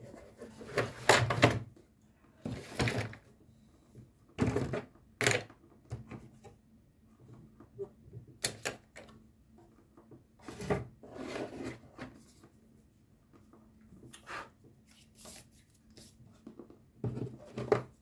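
Irregular taps, scrapes and small rattles, one or two every second or so, with the loudest clusters about a second in and near the end: cockatiels pecking at a hard plastic container and moving about on a wire cage.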